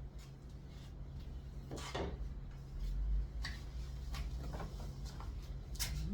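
Scattered light knocks, clicks and rubbing of wooden pieces being handled during carpentry work, over a steady low hum.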